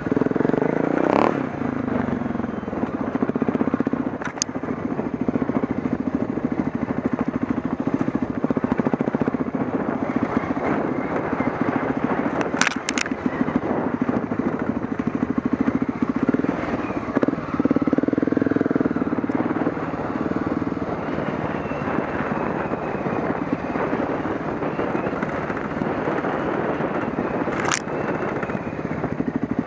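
Off-road motorcycle engine running at low speed on a rough dirt track, its note swelling with the throttle now and then. A few sharp knocks and rattles cut through it, about three times.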